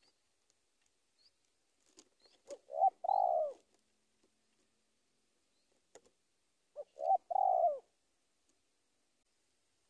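Spotted dove cooing twice, about four seconds apart. Each call is a couple of short notes running into a longer coo that falls in pitch at its end. It is the call used to challenge a rival.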